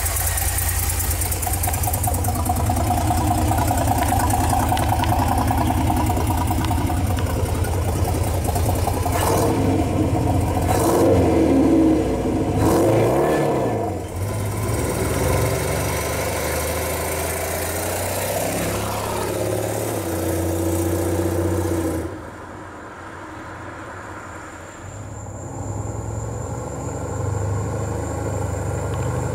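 Ford 200 cubic-inch inline-six with a performance header and Flowmaster exhaust running, revved up and down several times about ten to fourteen seconds in. Past the middle it is heard more faintly as the pickup drives, growing louder again near the end.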